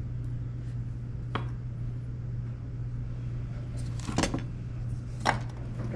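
A few sharp clicks and knocks of small hard parts or tools being handled, one early, a cluster about four seconds in and one near the end, over a steady low hum.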